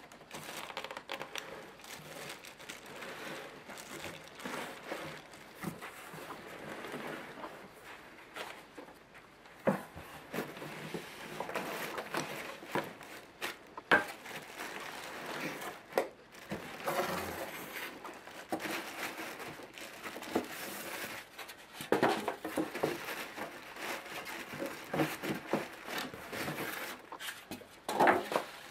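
Cardboard box flaps and a plastic wrapping bag being handled: irregular rustling and crinkling, with a few sharp cardboard knocks.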